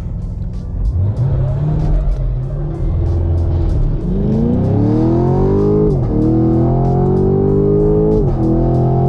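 Stock LT1 Camaro SS's 6.2-litre V8 at full throttle down the drag strip: the engine note climbs steadily after launch and drops sharply at two quick upshifts of its automatic, under background music.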